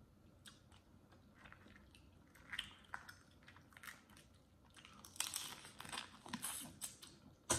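Boiled crawfish being peeled by hand, their shells giving scattered small clicks and crackles. Near the end comes a louder run of wet mouth sounds as a crawfish head is sucked.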